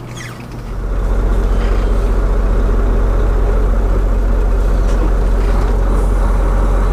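Semi truck's diesel engine, heard from inside the cab, swelling louder about a second in and then running steadily with a deep, even rumble.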